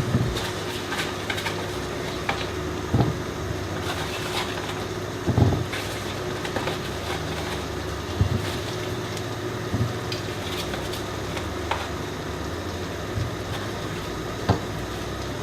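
Cherry tomatoes being dropped into a baking dish: scattered single knocks and taps at irregular intervals, about six of them. A steady low hum runs underneath.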